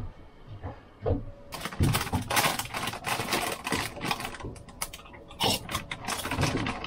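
Crinkly plastic snack bag being opened and handled, a dense run of crackling rustles starting about a second and a half in.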